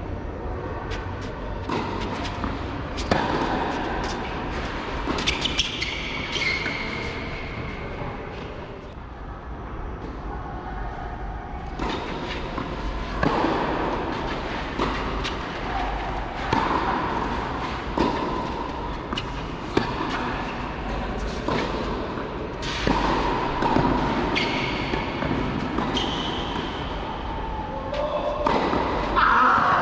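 Tennis rally on a clay court: rackets striking the ball with sharp pops at irregular intervals, over people's voices.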